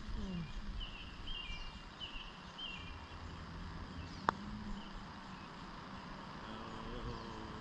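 A single sharp click of a putter striking a golf ball about four seconds in, over a steady low rumble. Earlier, a bird chirps in short repeated calls.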